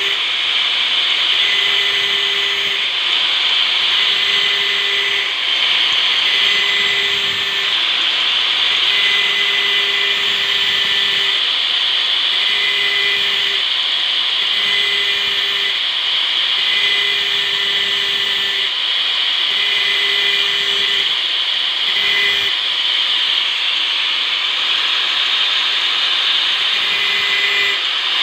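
A handsaw's teeth being sharpened: a steady, loud rasping hiss of metal on metal, with a ringing tone that comes and goes in short stretches about every one and a half to two seconds.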